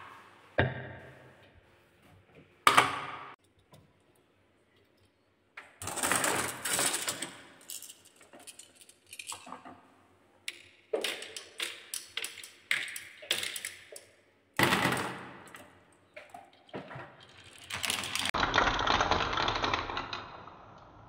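Marbles and a toy car clattering down a wooden HABA marble run: a couple of wooden knocks early on, then bursts of rapid hard clicks as they drop along the wooden track pieces, and a steadier rolling rush near the end as a line of marbles circles the wooden spiral.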